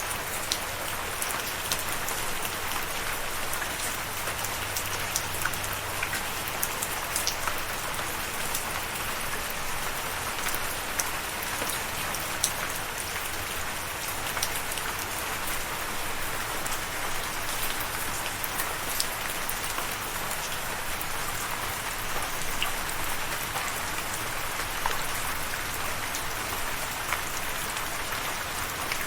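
Steady rain falling on a surface, an even hiss with scattered sharp drop taps.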